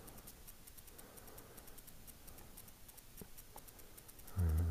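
Faint, rapid, high-pitched ticking, with two light clicks about three seconds in and a short, loud, low hum near the end.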